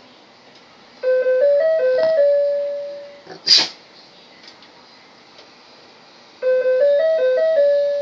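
Electronic musical doorbell playing a short chime tune of a few stepped notes, ending on a held note that fades; it plays about a second in and again about six and a half seconds in. A short sharp noise falls between the two tunes.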